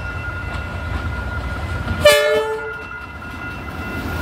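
Train horn sounding one short blast about two seconds in, over the steady low rumble of a passing train and a thin steady high tone.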